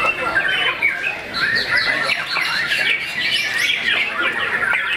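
Caged white-rumped shamas (murai batu) singing, a dense run of rapid overlapping chirps and whistled phrases from more than one bird.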